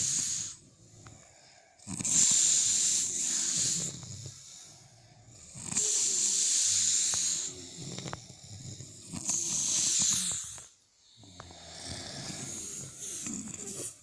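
Sleeping person snoring: about four long snores spaced three to four seconds apart, each a low rumble of the throat with a hiss of breath.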